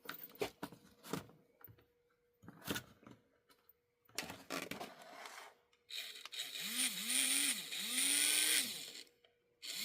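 Light clicks of small parts being handled, then about six seconds in the small electric motor of an HO-scale 0-10-0 locomotive is run in three short bursts, its whine rising and falling each time over a gritty gear hiss. The drive still slips.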